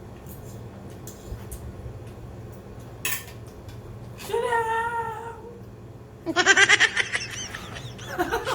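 A few light clicks, a short wavering high-pitched vocal sound about four seconds in, then from about six seconds in a person laughing in rapid, high-pitched bursts, the loudest sound.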